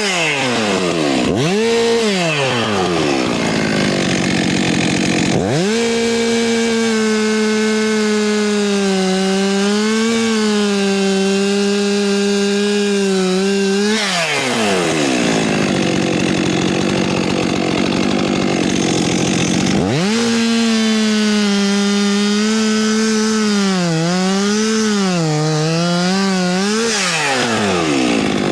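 Two-stroke chainsaw blipped up twice, then held at full throttle through two long cuts of about eight seconds each, its pitch sagging and wavering as the chain bites into the wood. Between the cuts it falls back toward idle.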